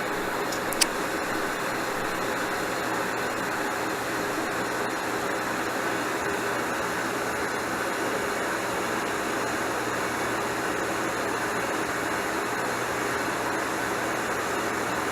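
Old dishwasher running: a steady, extremely loud noisy hum with a few faint steady tones, and one sharp click about a second in. The owner puts the loudness down to it being an old dishwasher.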